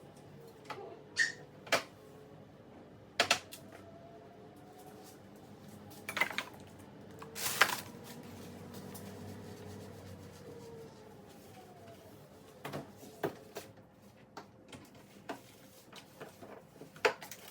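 Jars and plastic containers being taken out of the fridge and handled: scattered clicks, knocks and clatter, the loudest a short, sharp rattle about halfway through.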